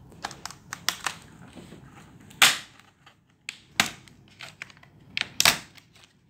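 Plastic retaining clips of a Dell Latitude 5470's bottom cover snapping loose one after another as the cover is pried off by hand. They make a series of sharp clicks, the loudest about two and a half, four and five and a half seconds in, with lighter ticks between.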